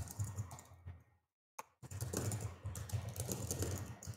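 Typing on a computer keyboard: a run of quick key clicks with soft thuds, pausing briefly about a second and a half in.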